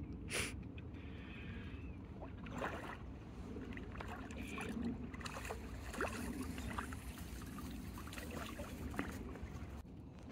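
A hooked tench splashing at the surface as it is played in toward the landing net, water slopping in short irregular bursts.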